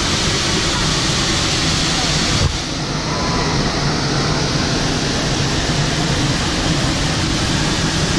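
Steady roar of a large waterfall plunging into its pool. The hiss at the top turns a little duller about two and a half seconds in.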